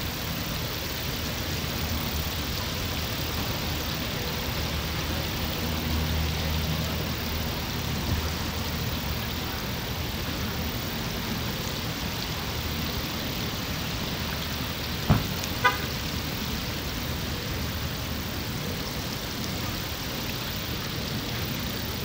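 Steady distant road traffic, with a low engine hum swelling as a vehicle passes in the first half. About two-thirds of the way in come two short sharp sounds, the second a brief toot.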